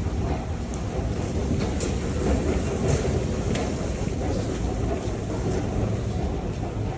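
Wind buffeting the microphone in a blizzard: a steady low rumble with a few faint scattered clicks.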